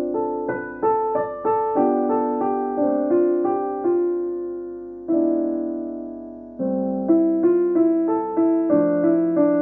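Background music: slow, improvised solo piano, with single notes and chords struck and left to fade. Fuller chords come in about five seconds and six and a half seconds in.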